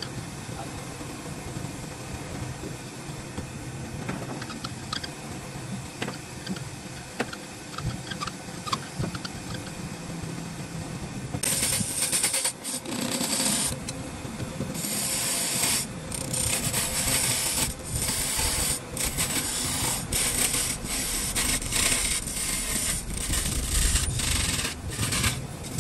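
Hand scraping and rubbing on wood: quiet with scattered small ticks at first, then loud, irregular rasping strokes from about halfway through.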